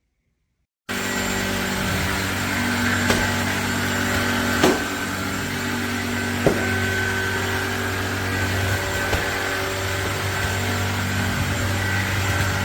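Cordless stick vacuum motor running steadily with a whining hum, cutting in abruptly about a second in. Three sharp clicks sound over it, the loudest a little before the middle.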